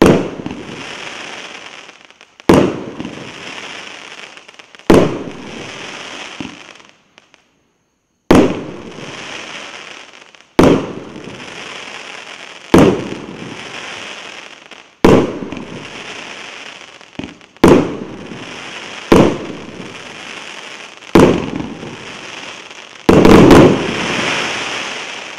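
A 49-shot, 1.25-inch "Golden Peony" fireworks cake (P9097) firing single shots about every two seconds. Each sharp bang is followed by a fading hiss and crackle as the glittering stars burn out. There is a short pause partway through, and a quick, louder volley of several shots comes near the end.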